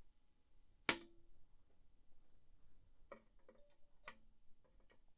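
Flush cutters snipping the excess wire leads of soldered 1N4148 diodes on a circuit board: one sharp snip about a second in with a brief ring, then a few fainter clicks near the end.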